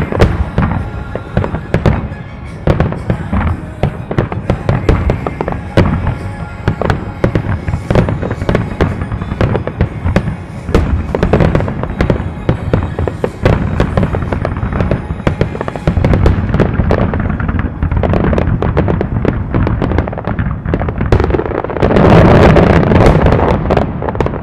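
A starmine fireworks barrage: rapid, overlapping shell bursts and crackling reports fired over music. The volley thickens into its loudest, nearly continuous stretch near the end, then eases off.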